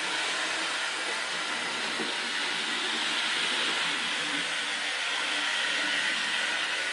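Rivarossi HO-scale model steam locomotive running on sectional track: the steady whirr and hiss of its motor and wheels rolling on the rails.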